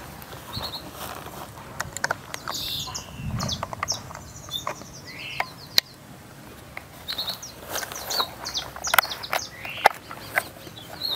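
Birds chirping and whistling, with scattered sharp clicks and a dull knock as hands work the controls on a cold Stihl MS 382 chainsaw, setting it for a choke start.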